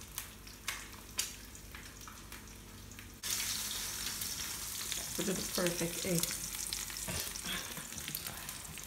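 An egg frying in a stainless steel skillet on a gas stove. A few light clicks come in the first second. About three seconds in, the sizzle suddenly gets much louder as the egg is turned in the pan, and it keeps hissing steadily.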